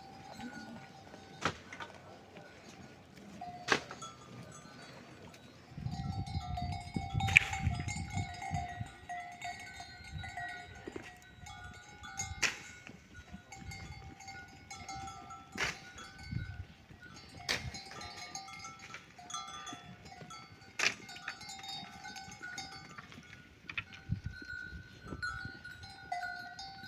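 Small bells clinking on and off, of the kind hung on grazing sheep or goats, with sharp clicks or snaps every second or two.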